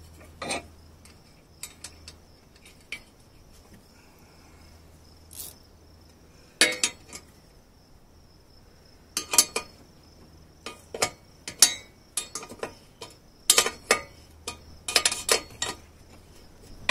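Hand tools clinking and ticking on a motorcycle's exhaust hanger bracket as a 12 mm nut is threaded onto its bolt and turned with a wrench. A few isolated clicks come first, then dense runs of clinks through the second half as the wrench works.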